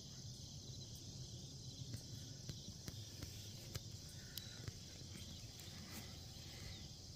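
Faint, steady chorus of crickets and other insects, with a low background rumble and scattered small clicks.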